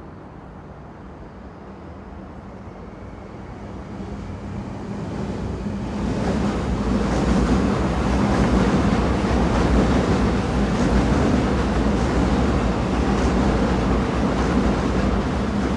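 Train running with a steady rumble, growing louder over the first six seconds and then holding at full level.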